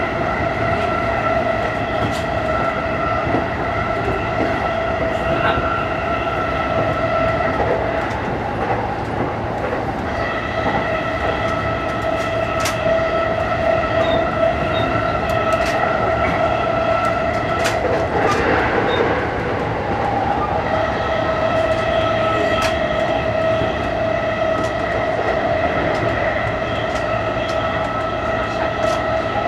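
E233-series electric commuter train running along the line, heard from on board: a steady whine with clicks of the wheels over rail joints. The whine drops out briefly twice, and there is a short rush of noise about two-thirds of the way through.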